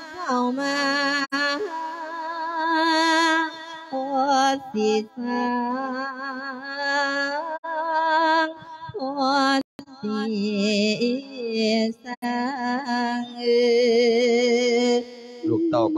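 A Thai Buddhist monk chanting a sung verse sermon into a microphone: one male voice in long, melodic held phrases with a wavering, ornamented pitch and short pauses between lines.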